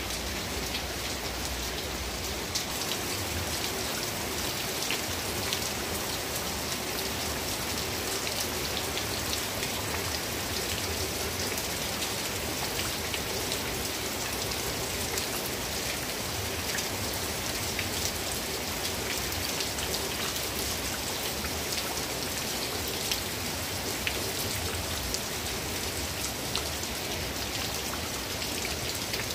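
Steady rain falling onto a wet yard with puddles, a continuous patter sprinkled with the small taps of single drops.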